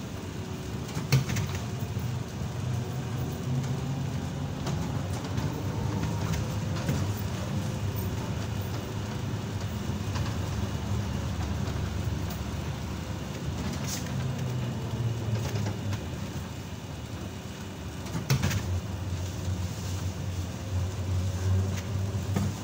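ZiU-682G trolleybus under way, heard from inside: a steady low rumble of the running gear with a faint whine. A few sharp knocks cut through it, the loudest about a second in and again at about 18 seconds.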